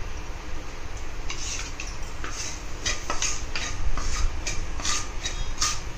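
Wooden spatula stirring spices in hot oil in a kadhai, scraping against the pan in short strokes, two or three a second, starting about a second in, over a steady low hum.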